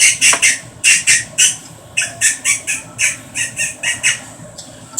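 Rapid runs of short, high-pitched squeaky chirping mouth noises, about five a second in groups of four to six, made by a person to tease a dog.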